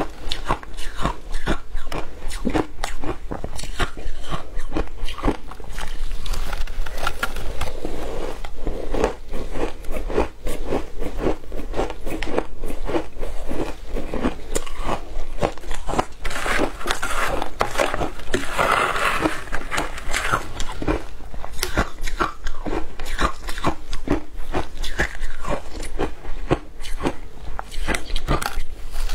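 Shaved ice coated in matcha powder being bitten and chewed, a dense, continuous run of crisp crunches.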